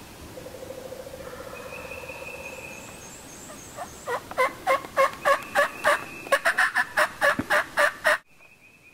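Turkey calling: a rapid run of about fifteen loud calls, roughly three a second, each note dropping in pitch, starting about four seconds in and cutting off abruptly near the end. Fainter, steadier bird notes come before it.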